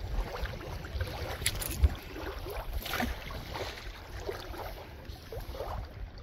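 Low wind rumble on the microphone, with a few sharp clicks and knocks of handling and faint rustling.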